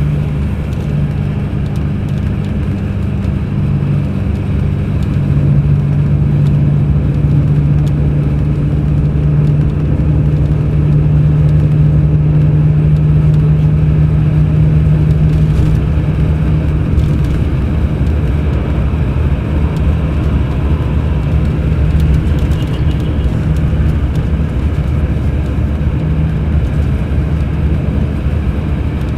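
Mercedes-Benz O500 RSD BlueTec5 coach's diesel engine running steadily under way, with a deep hum that gets a little louder about five seconds in and then holds.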